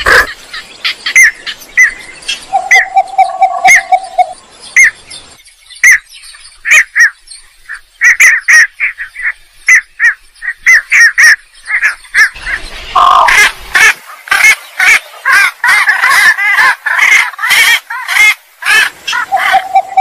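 Lure call of the belkok sawah bird: a string of short repeated chirps with one held lower note, the chirps quickening about two-thirds through into dense overlapping chattering.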